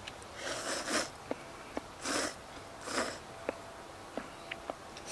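Hot miso ramen noodles being slurped in three short airy pulls, about half a second in, about two seconds in and about three seconds in, with faint clicks between.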